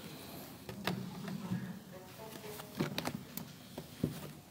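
Handling noise from a large hardbound book being closed and moved on a table close to a desk microphone: a few scattered knocks and clicks over a low room hum.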